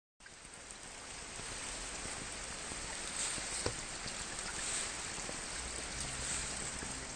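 Steady rush of flowing water, with a sharp click about halfway through. Soft music fades in near the end.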